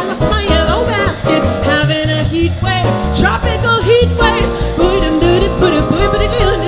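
Female jazz vocalist scat singing quick, bending wordless lines over a jazz trio of piano, upright bass and drums.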